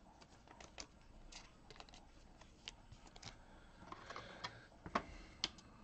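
Faint, irregular clicks and light rustles of trading cards being handled, the loudest click near the end.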